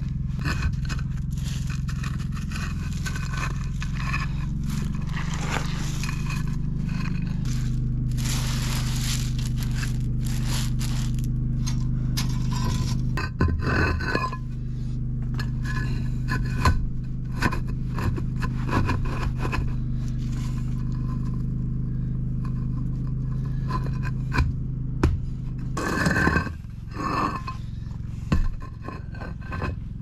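Rock scraping and crunching over a steady tractor engine running nearby; the engine hum fades out near the end.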